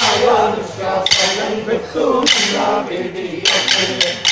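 Male voices singing a kolkali folk song, with sharp percussive strikes keeping the beat. The strikes come about once a second, then in a faster run near the end.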